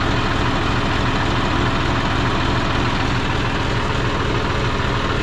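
John Deere 5036 D tractor's three-cylinder diesel engine idling steadily.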